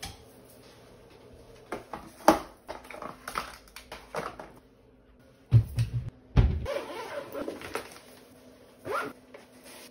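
Plastic food containers and lids being handled and set down on a kitchen counter: scattered clicks and knocks, with a few heavy thumps about halfway through. A short whining sound comes near the end.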